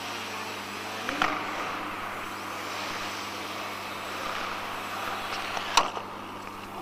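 Electric motor and propeller of a Leadfeather SkyCart radio-controlled aircraft running with a steady buzz. A knock comes about a second in and a sharp click about a second before the end.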